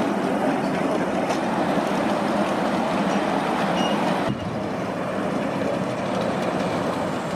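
Ridable miniature train, a small locomotive pulling passenger-loaded riding cars, running along its track: a steady rolling rumble of wheels on rail. The level drops abruptly a little past halfway.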